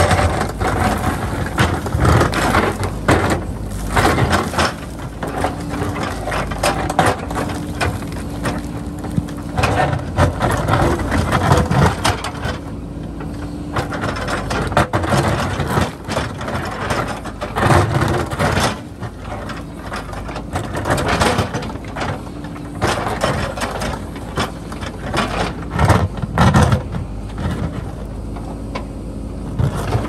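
A JCB backhoe loader's diesel engine working under load while its bucket scrapes and breaks into a rock face, with loose rocks clattering and knocking as they fall. Irregular knocks and scrapes come over the steady engine, several of them louder than the rest.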